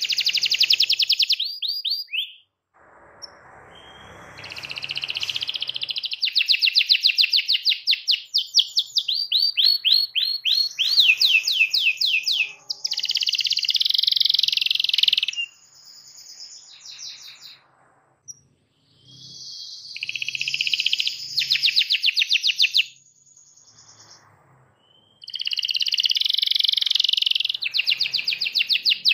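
Domestic canary singing vigorously in long phrases of fast trills and rapidly repeated notes, with dense buzzing rolls. The song breaks off for a few short pauses.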